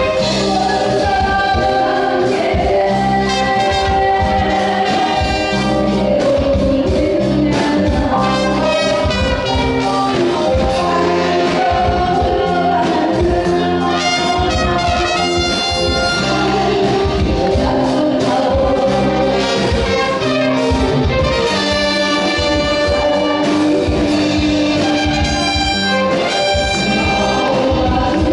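A woman singing a Korean trot song into a microphone over a live band, with a trumpet and a trombone playing behind her over drums and a steady beat.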